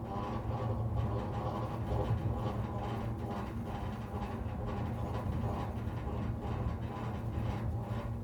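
Power line on a utility pole humming with electricity, with wind setting the wires singing like an aeolian harp: a steady low hum with several higher tones over it, wavering slightly in strength.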